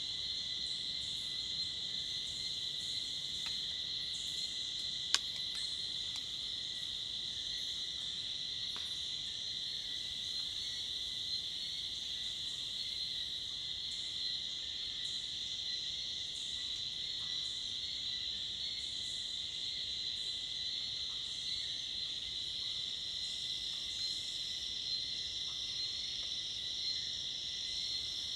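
Dense forest insect chorus of crickets and cicadas: a steady high-pitched buzz with a thinner steady tone beneath it and brief chirps above. A single sharp click sounds about five seconds in.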